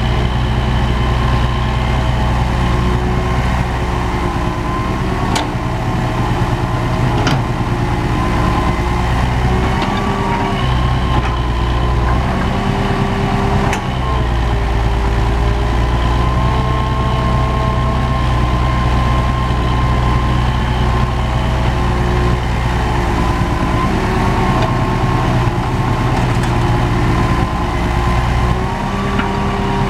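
Hitachi EX120 hydraulic excavator's diesel engine running steadily as it digs and swings its bucket, its pitch shifting slightly now and then. A few sharp knocks stand out, about 5, 7 and 14 seconds in.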